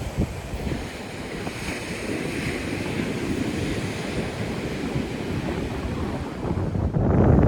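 Ocean surf washing onto a rocky shore, with wind buffeting the microphone; the wind rumble grows heavier near the end.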